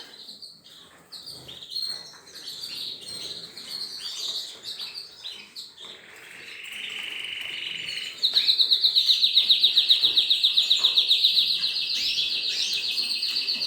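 Caged canaries chirping, then about eight seconds in one canary breaks into a long, loud, fast trill that keeps going.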